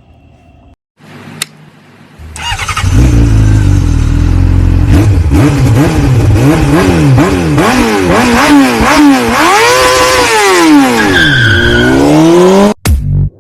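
Loud electronic intro sound: pitched tones sweeping rapidly up and down in repeated arcs, like a revving engine, starting about two seconds in and cutting off abruptly near the end.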